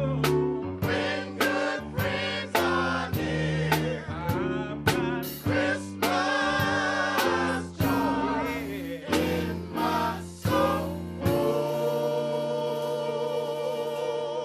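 Men's gospel choir singing in harmony over a steady beat of sharp hits, then holding a long final chord from about eleven seconds in.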